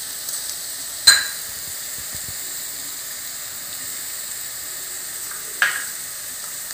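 Vegetables and scrambled egg sizzling steadily in a frying pan over a medium gas flame, with two sharp knocks, one about a second in and one near the end.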